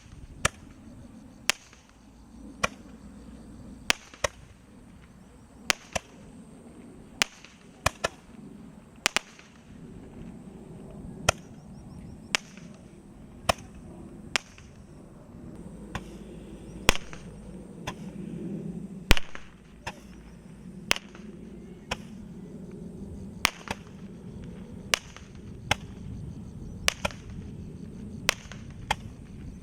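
Consumer firework firing a string of single shots, a sharp bang roughly every second, over a low background rumble.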